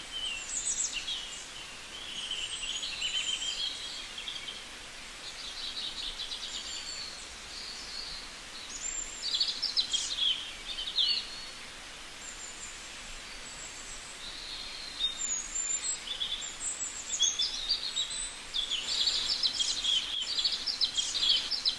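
Small birds singing and chirping, many short overlapping calls and trills over steady background noise, coming thicker near the end.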